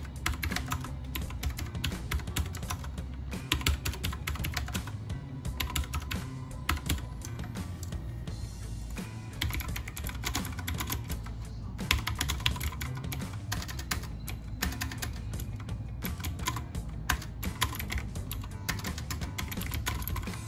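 Typing on a computer keyboard: runs of quick keystrokes broken by short pauses, with a longer pause about eight seconds in, over background music.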